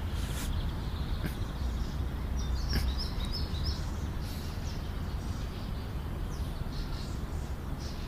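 Outdoor ambience: a steady low rumble with small birds chirping, a quick run of chirps about two to four seconds in and fainter ones later.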